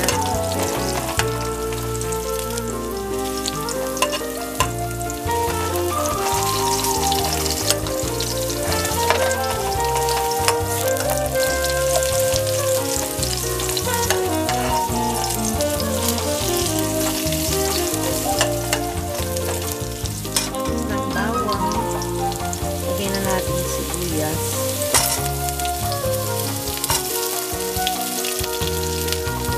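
Sliced ginger and garlic sizzling in oil in a frying pan, stirred with a metal spoon, with a few sharp clicks. Background music plays throughout.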